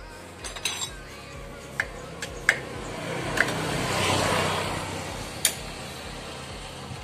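Steel hand tools, a metal rod and a spanner, clinking and scraping against a motorcycle's clutch hub as they are set in place. There are about five sharp metallic clinks, with a rustling scrape swelling up around the middle.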